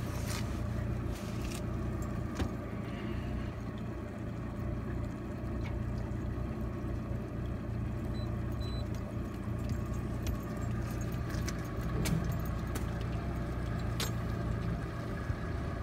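Aluminium boat's engine running steadily with a low hum, with scattered light metallic clicks and jingles over it.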